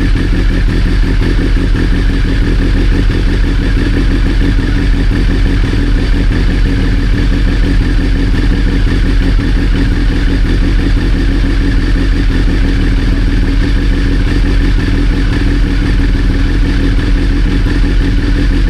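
Triumph Daytona 955i's fuel-injected three-cylinder engine idling steadily, with no revving.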